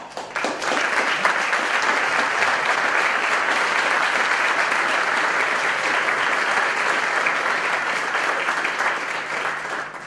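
Audience applauding steadily, fading away near the end.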